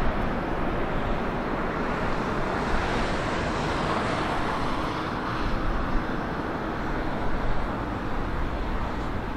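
Jet airliner noise: a steady, broad roar that swells slightly in the middle and eases off near the end.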